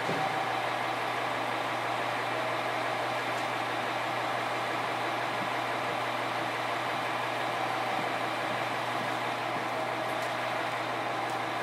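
Steady interior noise of a JR Kyushu 817 series electric train, heard inside its motor car KuMoHa 817-518.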